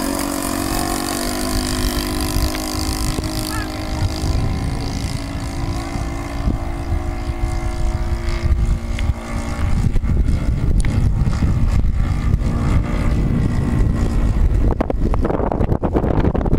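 Saito 70 four-stroke glow engine of a radio-control Piper Pawnee model running steadily in flight, its note fading about two seconds before the end, with wind rumbling on the microphone.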